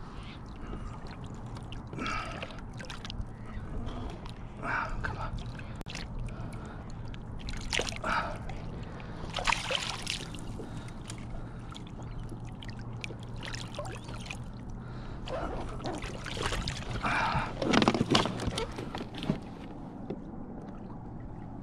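A hooked redfish thrashing at the surface beside a kayak, throwing water in several separate bursts of splashing.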